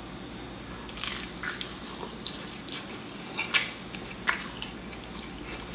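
Close-up biting and chewing of a soup-soaked, cheese-crusted rolled taco: a string of sharp, wet mouth clicks and smacks starting about a second in.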